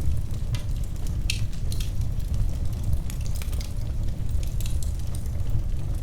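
Wood fire burning with irregular sharp crackles and pops over a steady low rumble of flame.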